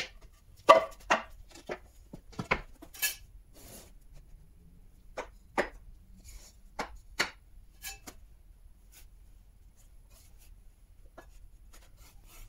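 Wooden boards and compressed sawdust briquettes being handled and set down: irregular sharp knocks and clacks, busiest in the first three seconds and again around the middle, then only a few faint ones.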